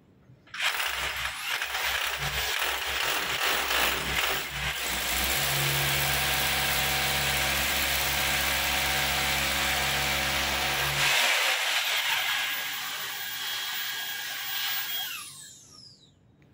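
Electric drill boring into a wall to fix a TV bracket: a long, loud run of drilling with a steady motor hum in the middle, easing off about eleven seconds in and winding down to a stop near the end.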